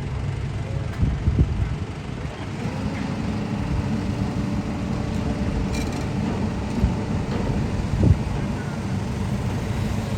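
A motor or engine running steadily with a low hum, with a few sharp knocks about a second in and again near the end.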